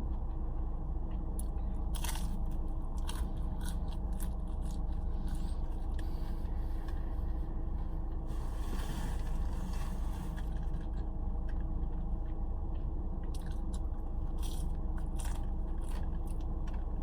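A person biting and chewing McDonald's food with crunchy clicks, and a rustle or scrape about halfway through, over a steady low hum.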